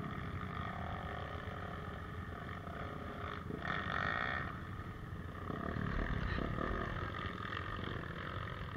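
Dirt bike engines running at low speed on a trail, steady, with the sound swelling a little about four seconds in and again a couple of seconds later.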